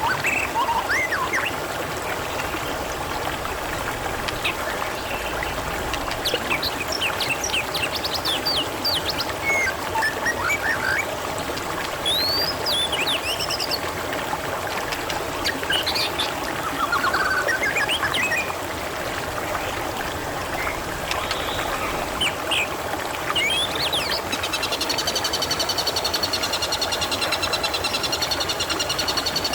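Water trickling steadily, with small birds chirping and whistling over it in short, rising and falling calls. Near the end a steady, fast-pulsing trill joins in.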